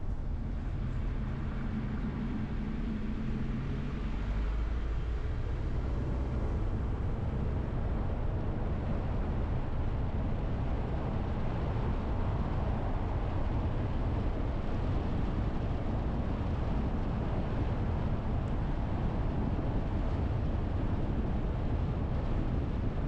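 Car being driven: engine running under steady road and wind noise, with the engine's note plainest in the first few seconds before it blends into an even rumble.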